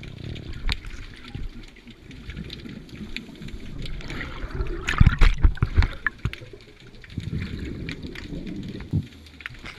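Underwater scuba ambience: divers' exhaled bubbles rumbling and gurgling, with scattered knocks. The loudest stretch comes about five to six seconds in.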